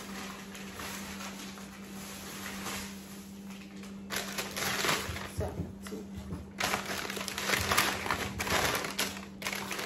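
Brown kraft packing paper crinkling and rustling as a candle is pulled out of it, quieter at first and louder and choppier from about halfway through.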